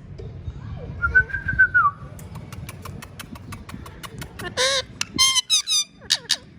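Indian ringneck parrot vocalizing: a short whistled note about a second in, then a quick run of clicks, then several loud, harsh squawks in the second half.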